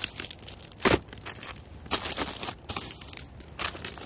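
Thin plastic grocery bag crinkling and rustling as hands rummage through packaged s'mores supplies, a cardboard cracker box and a plastic bag of marshmallows, with a sharp, loud crackle about a second in.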